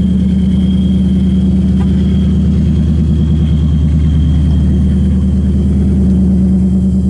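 A car engine idling steadily, with a fast even pulse and a thin high whine running over it.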